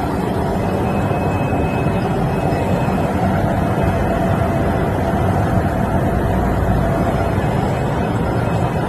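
Industrial washer and dryer for metal machining chips running, a loud, steady mechanical rush and hum with faint steady tones and no pauses.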